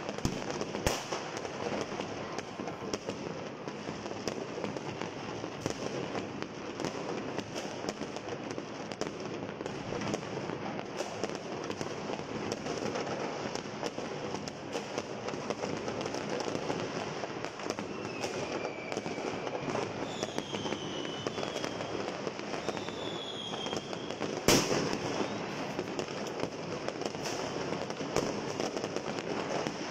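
Many fireworks going off at once: a continuous barrage of crackling pops and bangs. A few whistles glide in pitch about two-thirds of the way through, and soon after comes one bang much louder than the rest.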